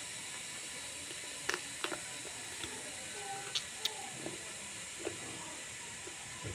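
Close-miked eating sounds from a person chewing duck meat off the bone: several short, sharp wet mouth clicks and smacks over a steady hiss.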